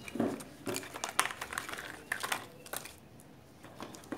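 Rolls of adhesive tape being set down in a wooden box, knocking against the box and each other: a quick run of light clicks and taps over the first three seconds, then one more tap near the end.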